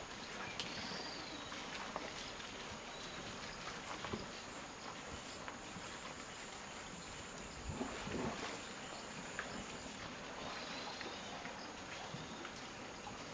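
A steady, high insect drone fills a tropical clearing, with a couple of faint whistled chirps near the start and near the end. A short, low scuffling sound comes about eight seconds in.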